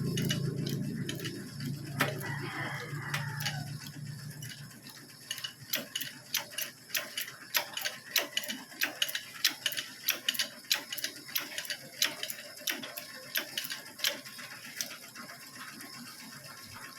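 Ratchet wrench clicking in short irregular strokes, about two to three clicks a second, working a bolt on the front suspension. Before the clicks, a low hum fades out over the first few seconds.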